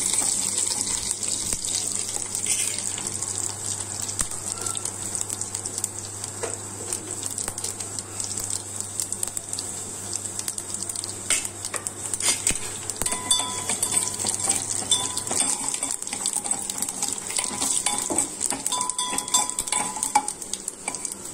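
Mustard and cumin seeds, crushed garlic, curry leaves and dried red chillies sizzling steadily in hot oil in a steel pot: a rasam tempering frying. A spoon clinks and scrapes against the pot now and then as it is stirred, more often in the second half.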